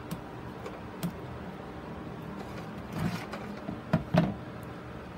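Handling noise: a plastic grid mounting board knocking and clicking a few times as gloved hands wrap fishing line around a sphagnum-moss ball, the loudest pair of knocks about four seconds in. A steady low hum runs underneath.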